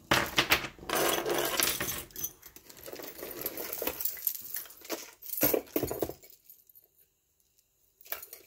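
Costume jewelry (metal bangles, chains and beaded necklaces) clinking and rattling as it is handled and slid across a table. The clatter is thick for the first few seconds, stops about six seconds in, and there is one more brief clink near the end.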